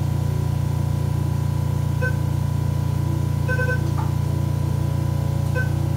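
Medical equipment beeping during an in-office nasal treatment: short electronic beeps come about every one and a half to two seconds, with a longer beep midway, over a steady low hum.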